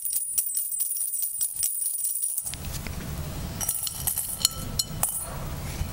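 Metal dog tags jingling and rattling against each other in a clear glass bowl as it is shaken: a rapid, bright jingle for about two and a half seconds. Then comes duller handling with a few scattered clinks.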